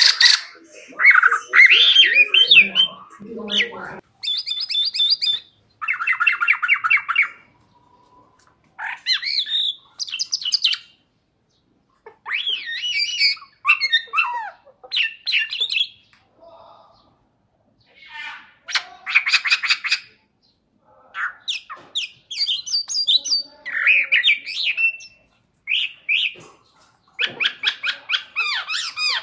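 Chinese blackbird singing in its cage: short, varied phrases separated by pauses, several of them fast rattling trills. Its song is full of mimicry, imitating other birds and animals such as dogs, cats, hens, swallows and magpies.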